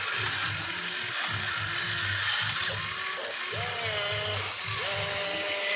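Electric motors and gearboxes of an RC excavator whirring as it moves its boom and bucket. The whine rises, holds and falls away in pitch several times as each motion starts and stops.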